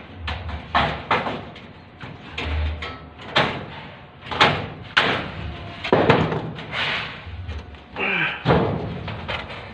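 Irregular knocks and bangs from ceiling construction work, about a dozen sharp hits spread unevenly, with a few dull low thuds among them.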